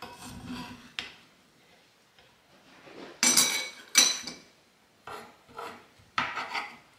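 Metal spoon scraping and scooping through a baked crisp in a cast iron skillet and serving it into a ceramic dish: a series of irregular scrapes, with a sharp clink about a second in and the loudest scrapes about three to four seconds in.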